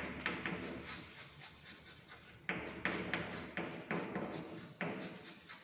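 Chalk tapping and scraping on a blackboard as a line of words is written: a string of short, sharp strokes, with a brief lull about halfway through.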